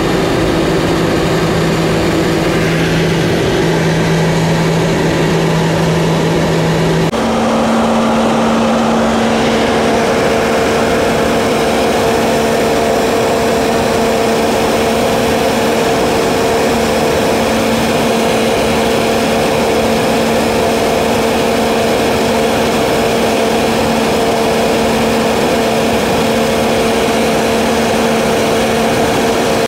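Seaplane's propeller engine droning loudly and steadily. About seven seconds in, the pitch of the drone jumps up abruptly and then holds steady.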